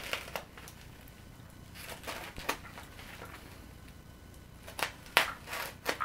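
Snap-off utility knife cutting into a parcel's bubble wrap and plastic wrapping, with crinkling of the plastic as it is handled; a series of short scratchy bursts, the loudest about five seconds in.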